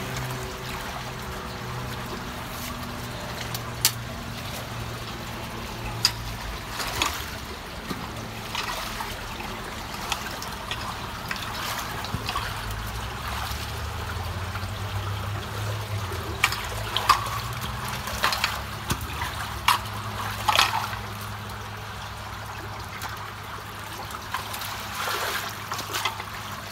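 Water trickling and running through the mouth of a culvert being cleared of a beaver-dam clog, with scattered sharp splashes and knocks as a wooden-handled tool and boots work the debris in the water.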